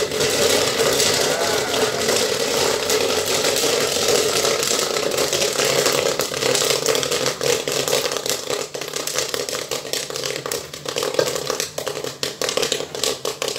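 Popcorn kernels popping in the stirred kettle of a popcorn machine: rapid, dense popping that thins into separate pops over the last few seconds, over a steady hum. The popping means the batch is nearly done.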